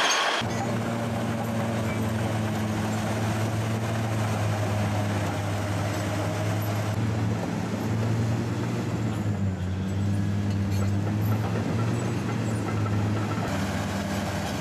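Large diesel engine of heavy earth-moving machinery running steadily, a low drone that holds with only slight shifts in pitch.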